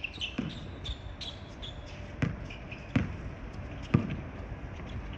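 Basketball dribbled on a hard court: four separate thuds of the ball hitting the ground, the last one the loudest.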